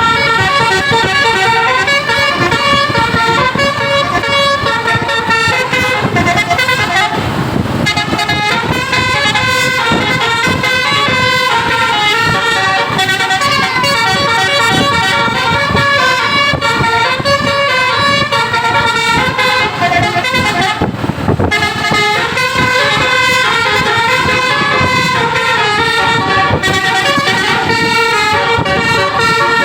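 Telolet basuri musical bus air horns playing a continuous melody of quickly changing notes, with a low rumble underneath. A brief rush of noise cuts across the horns about seven seconds in and again about twenty-one seconds in.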